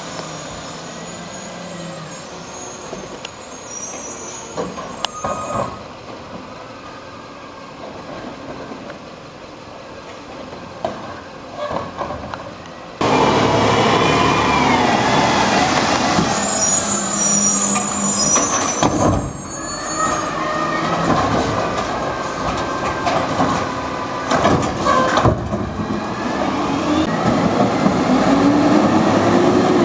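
2011 Peterbilt 320 garbage truck with a Wayne Curbtender body, its engine running with a few knocks. Less than halfway in, the sound jumps to much louder and closer as the truck works its way up the street. Near the end the engine revs up and then back down.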